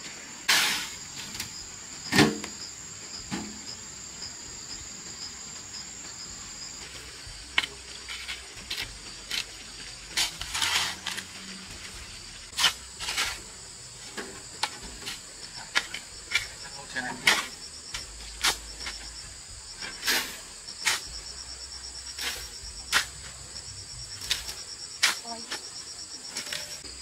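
Insects chirping steadily in a high, continuous trill, with many irregular sharp knocks and clacks scattered throughout, the loudest event about two seconds in.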